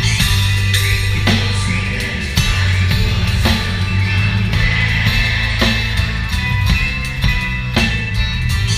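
Live sertanejo band music heard from right at the drum kit: drums and Paiste cymbals keep a slow, steady beat with a strong hit about once a second, over bass and guitars.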